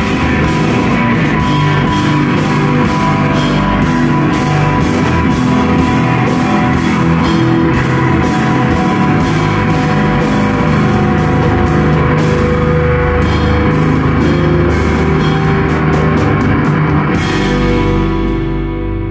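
Live rock band playing loud electric guitars over a drum kit with steady cymbal and drum hits. Near the end the drumming drops out and the guitar chords ring on.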